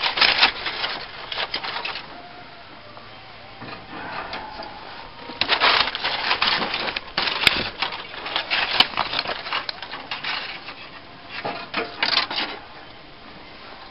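Aluminium foil crinkling and metal tongs clicking as racks of rubbed baby back ribs are lifted from the foil and laid on an offset smoker's grill grate. The noise comes in several short spells with quieter gaps, and a couple of sharp clicks come midway.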